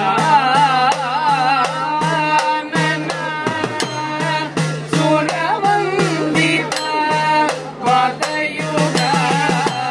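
Sopana sangeetham: men singing a slow, heavily ornamented devotional melody, accompanied by frequent strokes on an idakka, the hourglass temple drum, over a steady low drone.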